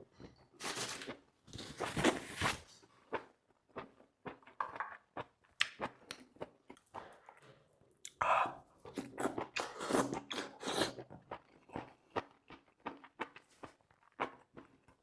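Close-miked chewing and biting of sea snail meat in sauce: many short wet clicks and crunches, with longer noisy bursts about two seconds in and again between about eight and eleven seconds.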